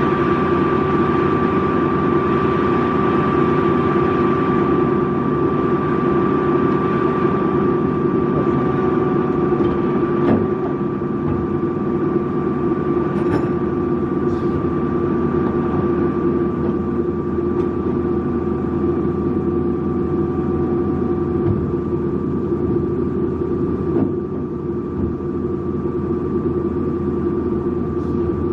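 Amada HA250W automatic horizontal band saw running: a steady machine hum with a constant whine. There is a short click about ten seconds in and another near the end, each followed by a slightly quieter running sound.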